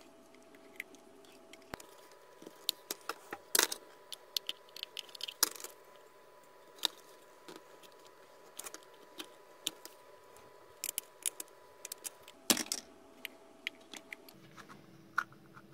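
Small side cutters snipping and picking at the plastic shell and silicone inside an LED bulb's base. The clicks and snaps come irregularly, with a few louder cracks about three and a half, five and a half and twelve and a half seconds in.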